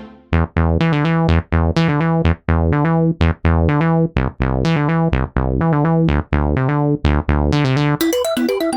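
Spectrasonics Omnisphere software synthesizer playing a retro-style patch: a rhythmic line of short, sharply struck plucky notes, each quickly cut off. Near the end a different patch takes over with a fast, busy arpeggio of higher notes.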